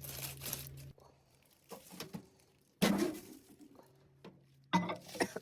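Kitchen prep handling sounds: a few separate knocks and clatters of containers and utensils being handled and set down. A low hum stops about a second in.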